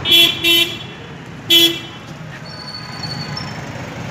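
Vehicle horn honking three short times, two quick toots and then a third about a second later, over steady street traffic noise.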